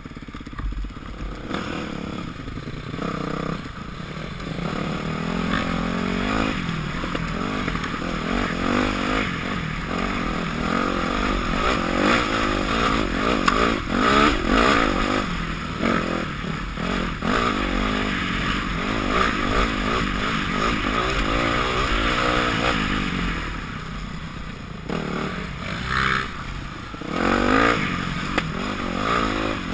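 2006 Yamaha YZ250F's four-stroke single-cylinder engine under way on a dirt trail, its pitch rising and falling with throttle and gear changes, over a constant hiss of wind and trail noise.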